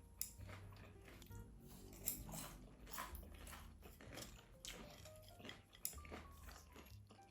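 Crisp deep-fried king oyster mushroom pieces crunching as they are bitten and chewed, with a few sharp crunches, over soft background music.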